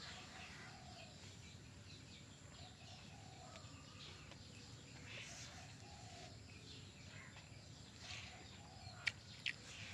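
Quiet outdoor ambience with faint scattered bird calls, and two short sharp sounds near the end, about half a second apart.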